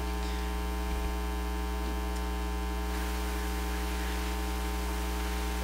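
Steady electrical mains hum with a buzzy row of overtones and a faint hiss, from the microphone and sound system left open between speech.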